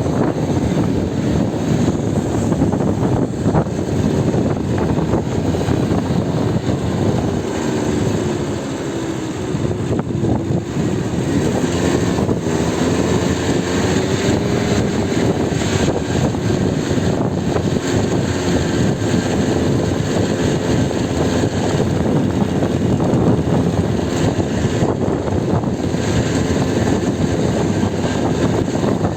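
Strong wind buffeting the microphone in a loud, steady rumble, over the noise of a rough sea.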